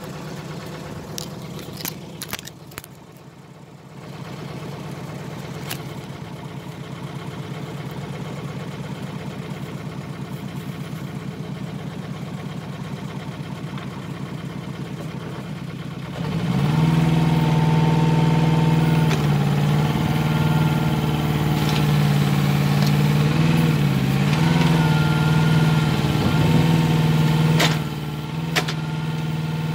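Hanix mini excavator's engine running steadily at low speed, then about halfway through it speeds up and runs louder, with a whining tone that wavers as the arm digs. A few short knocks come through.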